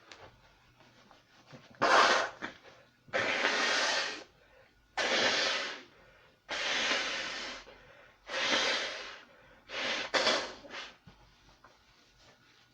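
A person sneezing over and over in a fit: about seven loud sneezes in a row, one every one to two seconds, most of them drawn out to about a second.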